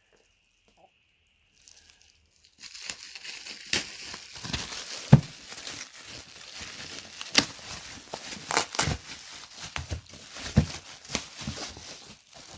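Parcel packaging being handled and pulled open: crinkling and tearing with scattered sharp crackles. It starts about two and a half seconds in, after a near-silent start.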